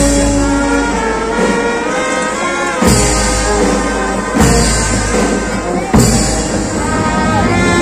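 Procession brass band playing a slow Lenten funeral march: held brass chords, with heavy bass drum and cymbal strokes three times, the cymbals ringing on after each.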